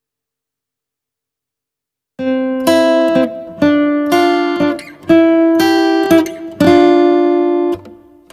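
Silence, then about two seconds in, music begins: a strummed acoustic guitar, with a new chord roughly every second and a half.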